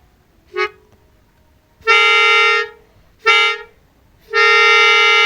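Horn of an Indonesian KRL electric commuter train built by PT INKA, sounding on one steady pitch: a very short toot, then two short blasts and a long one.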